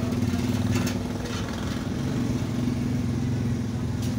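A motor running steadily at constant speed, a low even drone, with a few light taps.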